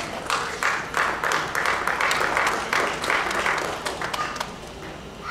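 Audience clapping, with voices mixed in; it thins out to a few scattered claps about four and a half seconds in.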